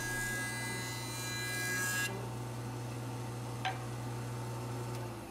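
Jointer running as a glued-up wooden blank is fed edge-down over its cutterhead: a steady motor hum with the noise of the knives cutting wood over it, the cutting stopping about two seconds in.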